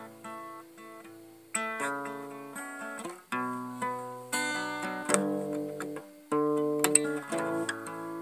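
Guitar being played: a series of chords and plucked notes, each struck sharply and left to ring out.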